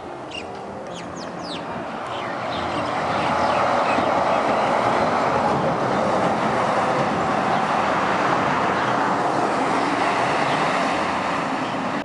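Heavy tractor-trailer truck with a dump trailer passing along the road, its engine and tyre noise swelling over the first few seconds and staying loud. Birds chirp at the start.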